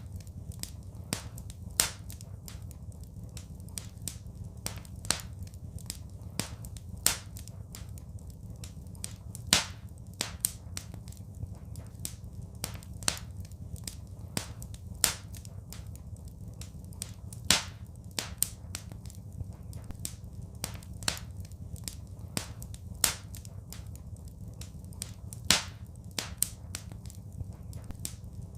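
Wood fire in a fireplace crackling: irregular sharp pops and snaps, a handful much louder than the rest, over a steady low rumble.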